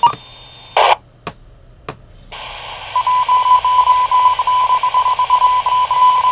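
Handheld VHF radio receiving a transmission through its speaker. A few squelch clicks and short bursts come first. About two seconds in, a hissy carrier opens, and a test tone of one pitch comes through it, breaking up rapidly on and off.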